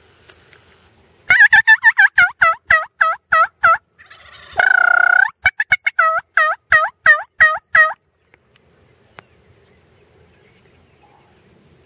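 Turkey call imitating a hen: a loud run of yelps at about four a second, one longer drawn-out note a little past the middle, then more yelps that stop about eight seconds in. It is calling to lure gobblers.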